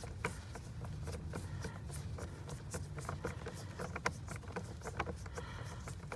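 Small irregular clicks and light scrapes of a screwdriver and screw against the car's interior trim as a screw is being started, over a steady low hum.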